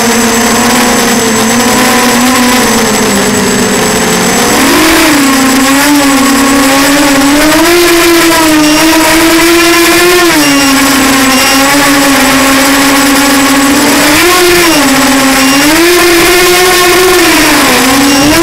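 Walkera Runner 250 quadcopter's brushless motors and propellers making a steady buzzing whine. Its pitch swings up and down with the throttle, with several surges.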